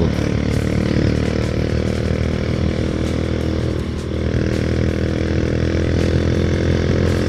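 Honda GL100 motorcycle's single-cylinder four-stroke engine running steadily while cruising, heard from the bike itself. It dips briefly about four seconds in.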